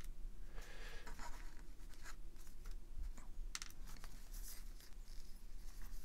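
Microfiber cloth rubbing and rustling as small pocket-knife parts are wiped dry after an alcohol cleaning, with a few light clicks from small metal parts being handled.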